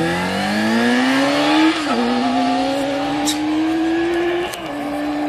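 Motorcycle accelerating hard, its engine note climbing steeply, then dropping and climbing again at two upshifts, about two seconds in and again near four and a half seconds.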